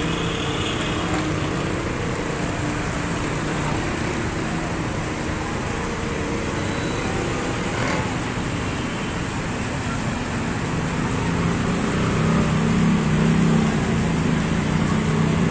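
Street traffic on a flooded road: vehicle engines run over a steady wash of noise, and one engine grows louder in the last few seconds.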